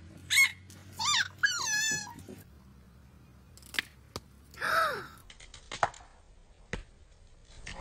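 A dog whining in three short, high, wavering cries in the first two seconds. After a pause come a few sharp clicks and one brief falling cry.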